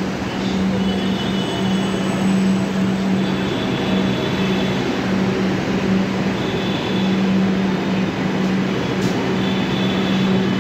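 Kolkata Metro train running in along the station platform as it comes in to stop: a steady low hum and rumble, with high thin squeals coming and going several times.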